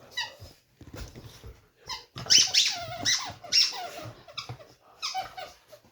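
A dog chewing a squeaky toy: the toy squeaks over and over in short, quick, irregular bursts, loudest and densest in the middle.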